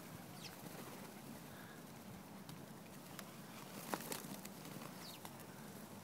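A flock of feral pigeons feeding on the ground: scattered light clicks and pats of pecking and footsteps, with a brief flutter of wings about four seconds in. A few faint short bird chirps come through.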